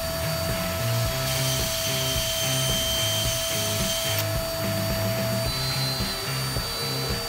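Power drill running a hole saw through a fibreglass instrument panel, with a vacuum cleaner running at the cut as a dust extractor; a steady whine that changes about four seconds in. Background music with a steady beat underneath.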